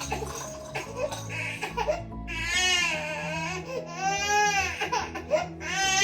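Baby crying: after a couple of fussy seconds, three long high-pitched wails about a second apart. Soft background music plays underneath.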